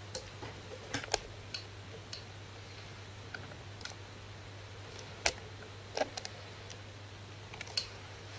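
Scattered light clicks and taps, irregular and spaced out, the sharpest about five seconds in, over a faint steady low hum.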